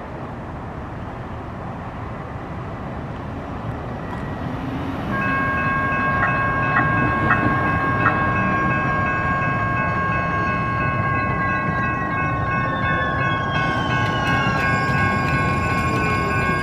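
Siemens S70 light-rail car of the San Diego Trolley pulling into a station on curved track. Its rolling rumble grows as it nears. From about five seconds a steady high-pitched squeal of several tones sets in and holds, the wheels squealing on the curve, and from about eleven seconds a whine falls in pitch as the car slows.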